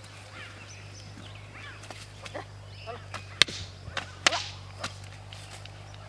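Sharp smacks of a stick or switch used to drive a plough-ox team: two loud ones a little under a second apart, about three and a half seconds in, with lighter clicks around them.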